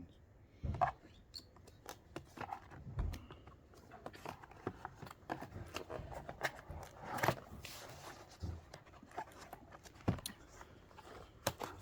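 Screwdrivers and their plastic packaging being handled: irregular clicks, knocks and short scrapes.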